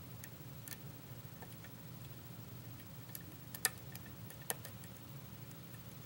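Pick and tension wrench working the pins inside a pin-tumbler challenge lock: small scattered metal ticks, with two sharper clicks close together a little past the middle.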